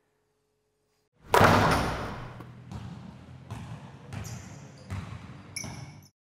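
A basketball strikes the floor hard, then is dribbled in a steady rhythm, a bounce about every 0.7 s, with a few short high squeaks near the end.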